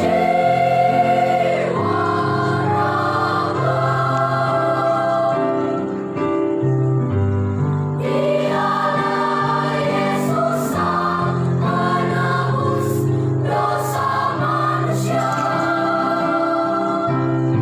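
Choir singing a sacred song in several parts, low and high voices together, holding long chords with a brief breath about six seconds in.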